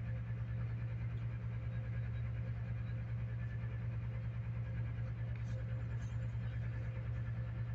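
A steady low hum with a faint even hiss over it, unchanging in level.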